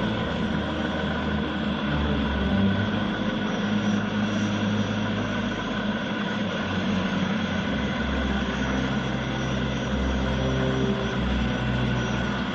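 Steady deep rumble and drone of a spaceship fleet's engines, a science-fiction sound effect, with several high tones held throughout.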